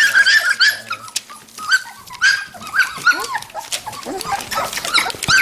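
Red standard poodle puppies whimpering and yipping: a quick run of short, high-pitched cries, thinning out about a second in and picking up again toward the end.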